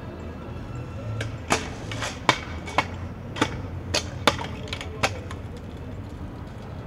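Stunt scooter knocking and clattering against hard ground: about eight sharp, irregular knocks over three and a half seconds, starting about a second and a half in, over a low hum.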